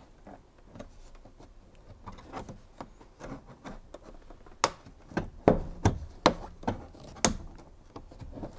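Plastic overhead console in a Land Rover Discovery 3's roof lining being worked loose by hand: faint rubbing and small clicks at first, then from about halfway a series of about six sharp plastic clicks and knocks as its retaining clips are pried at.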